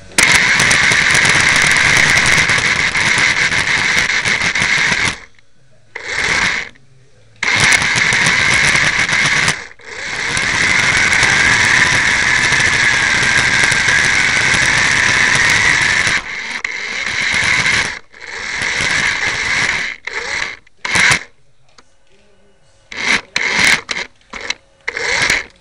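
Electric motor and gears of a radio-controlled Mini car whining in bursts as it is driven, heard close up from the camera mounted on the car. The whine wavers in pitch through a long run of about six seconds in the middle, and breaks into several quick short blips of throttle near the end.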